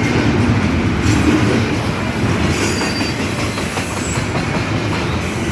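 Intermodal container freight train rolling past: a steady, loud rumble of railcars and wheels on the rails, with a faint high wheel squeal about halfway through.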